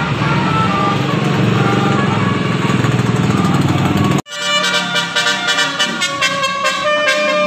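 Heavy vehicle engine running with a telolet basuri musical horn playing a faint melody over it; about four seconds in it cuts off abruptly to melodic music with a steady beat.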